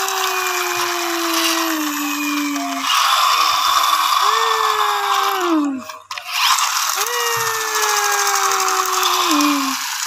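Friction-motor toy forklifts whirring, their flywheel gearing grinding and rattling: three spin-downs, each a whine that sags slowly in pitch and then drops off quickly as the flywheel runs out.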